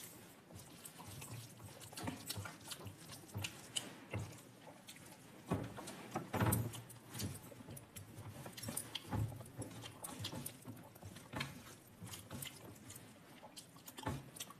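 A person eating chana bhaji and karhi close to the microphone: irregular chewing, wet mouth sounds and small clicks, with a louder knock about six and a half seconds in.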